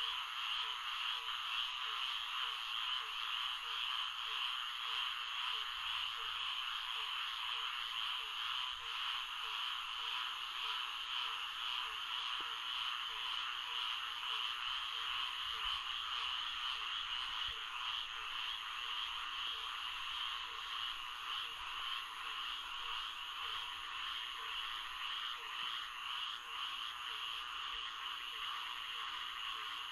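Florida swamp frog chorus: a dense, steady chorus of many calling frogs, with a lower call repeating in a regular rhythm underneath.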